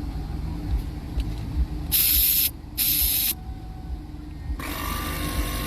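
Air hissing from an on-board air suspension compressor kit: two short loud bursts about two and three seconds in, then a longer steady hiss with a whine in it from about four and a half seconds in.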